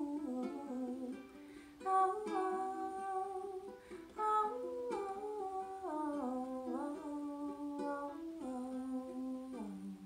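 A woman humming a wordless melody over strummed ukulele chords, with the tune stepping down to a low closing note that fades out near the end.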